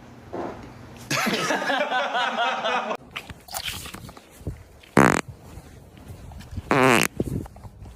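A series of human farts: a long, wavering one lasting about two seconds starting a second in, a short sharp one near the middle, and another short, wavering one near the end.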